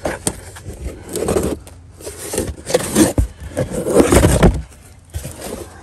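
Cardboard box holding a new air shock absorber being handled, with scraping and rustling in about three irregular bursts, the loudest around four seconds in.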